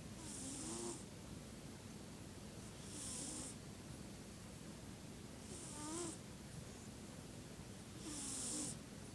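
Snoring: four slow, even breaths about two and a half to three seconds apart, each a hiss with a faint wavering squeak.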